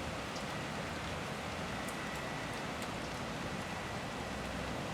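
Steady city street ambience: an even wash of noise, with a faint high whine coming in about two seconds in and a few light ticks.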